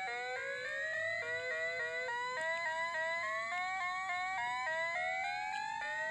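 An electronic melody of short, pure notes, each a step higher than the last, climbing over a second or two, then dropping back low and climbing again several times.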